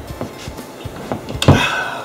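A heavy thump about one and a half seconds in as a person drops down onto a couch, with a few lighter knocks before it.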